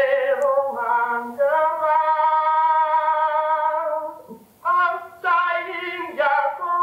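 An unaccompanied man's voice singing, from a phonograph cylinder recorded about 115 years ago, digitised and cleaned with spectral noise reduction. One long held note in the middle, then a brief break and shorter notes.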